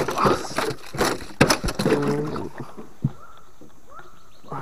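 A freshly caught hampala thrashing in the angler's hands over a wooden boat: a run of knocks and splashy slaps in the first second and a half, then quieter water noise around the boat.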